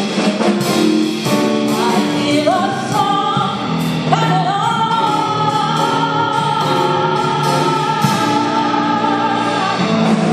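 A woman singing into a handheld microphone with band accompaniment, moving through short phrases and then holding one long note through the second half.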